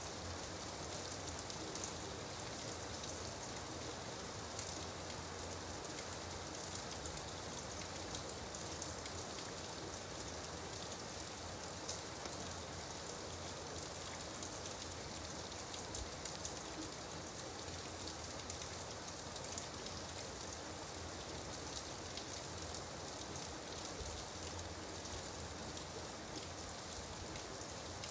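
Gentle rain falling steadily, a continuous hiss with many fine drop ticks.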